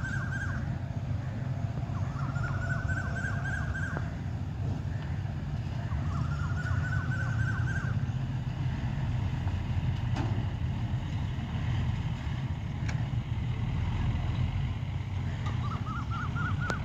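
Steady low outdoor rumble of wind or distant traffic, with a short rising, rapidly pulsed call about two seconds long that repeats every few seconds, the last one near the end.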